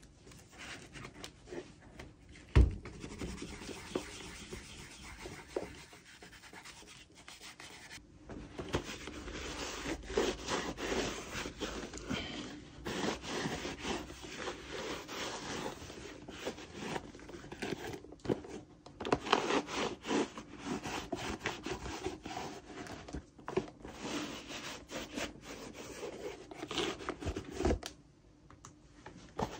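A cloth rubbing saddle soap into a leather boot upper in quick, irregular strokes, with a single sharp knock a few seconds in.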